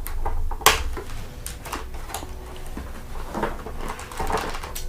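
Plastic action-figure packaging being handled as the figure is worked out of its clear tray: irregular clicks, taps and crinkles, the sharpest a little under a second in.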